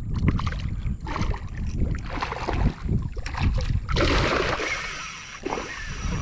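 Water splashing and sloshing around a kayak, with scattered knocks and clatter, and a longer splash about four seconds in.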